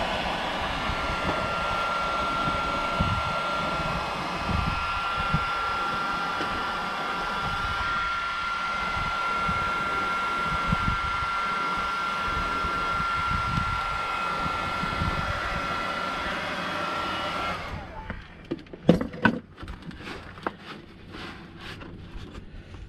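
Electric heat gun blowing steadily with a thin constant whine while it heats and softens a plastic milk jug for moulding. It is switched off about three-quarters of the way through, followed by a few light knocks and taps.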